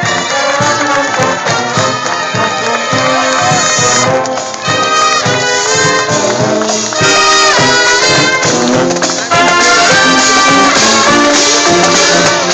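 Marine Corps marching brass band playing a tune, trumpets and trombones carrying the melody. The music jumps abruptly about 4, 7 and 9 seconds in.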